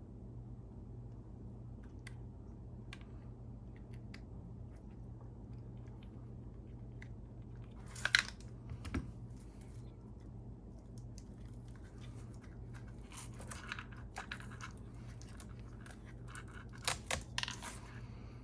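Hands working on RC truck parts: scattered small plastic clicks and crunches, the loudest about eight seconds in and a quick cluster near the end, over a steady low hum.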